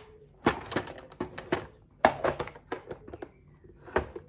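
Handling noise: irregular clicks, taps and thunks of objects being moved about, with the sharpest knocks about half a second in, about two seconds in and near the end.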